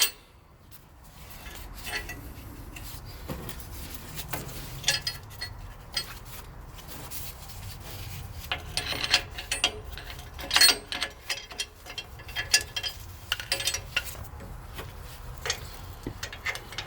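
Lug nuts being spun by hand onto a truck wheel's studs: irregular metallic scraping, rattling and clinks as the nuts thread on.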